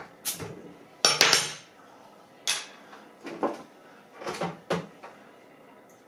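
A glass beer bottle being uncapped and handled: about six separate clinks and knocks of glass and metal, spaced out, with the sharpest near a second in.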